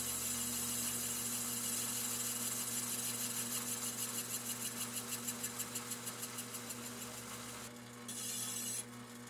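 Metal lathe running with a steady hum while an insert cutter faces the edge of a copper pipe, a thin cutting hiss over the motor tone. The cut pulses evenly through the middle, drops away near the end, and a short scraping hiss follows.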